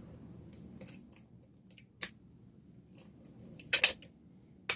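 Lock pick working the pins inside a lock: scattered sharp metallic clicks, several spaced out and then a quick run of them near the end.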